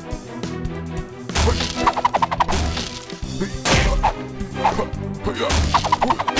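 Cartoon fight sound effects over background music: two quick flurries of rapid whacks and several heavy crashing impacts as a wooden kitchen counter is smashed.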